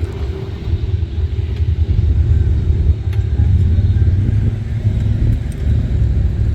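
ATV engine running loudly and steadily.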